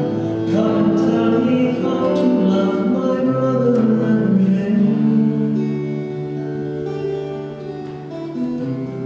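Acoustic guitar accompanying a voice singing a hymn. The voice drops out about halfway through, leaving the guitar playing on more softly.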